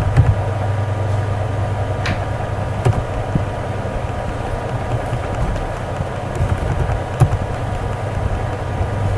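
Steady low background hum with a constant noise floor, broken by a few sharp keyboard clicks as code is typed, at about two, three and seven seconds in.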